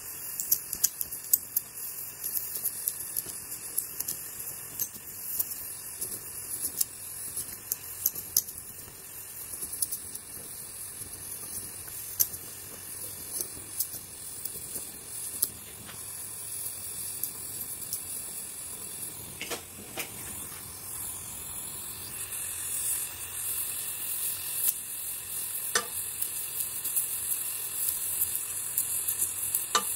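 LPG gas torch flame giving a steady high hiss with frequent sharp crackles as an aluminum filler rod is melted into the weld bead.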